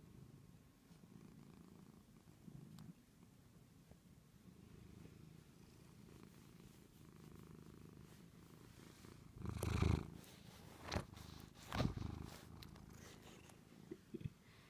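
Domestic cat purring in a faint, steady low rumble, with three loud knocks about ten, eleven and twelve seconds in.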